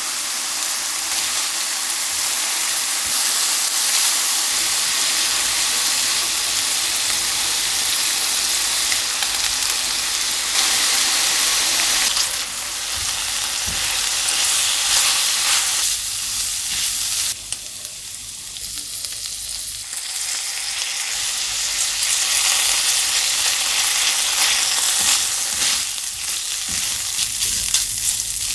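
Food sizzling in hot oil in a frying pan, a steady crackling hiss that eases for a few seconds in the middle and then picks up again.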